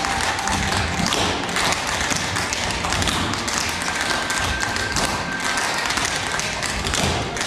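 Several dancers' shoes tapping and stomping rapidly on a stage floor, a dense run of taps and thuds, with faint music underneath.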